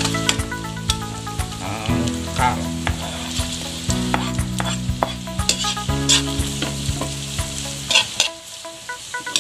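Metal spatula stirring and scraping vegetables around an aluminium wok, with sizzling and repeated clinks of the spatula on the pan. Julienned carrots are tipped in from a cutting board about four seconds in. Background music with chords changing about every two seconds plays underneath and drops away near the end.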